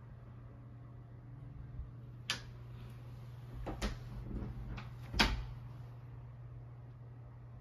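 A handful of sharp knocks and clicks from a closet or room door being handled: one about two seconds in, a quick pair near four seconds, and the loudest a little after five seconds. A steady low hum runs under them.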